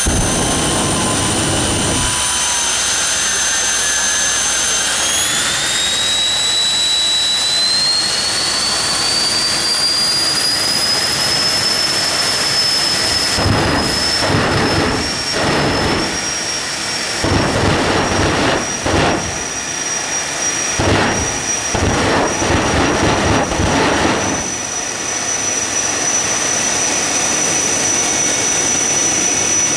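Jet dragster's turbine engine running with a high whine that climbs in pitch about five seconds in, then holds steady. From about 13 to 24 seconds a run of louder rushing surges comes and goes over the whine.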